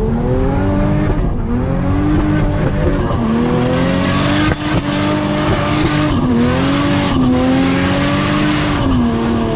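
Turbocharged Ford Barra inline-six in a Nissan Patrol 4x4 driving on soft sand, its pitch rising and falling several times as the throttle and gears change, with a rushing noise above it.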